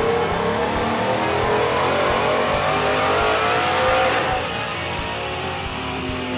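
Full bolt-on 2014 Ford F-150 at wide-open throttle on a DynoJet chassis dyno, the engine's pitch rising steadily as it pulls through the run. A little over four seconds in the throttle is released and the engine note falls away as the rollers coast down.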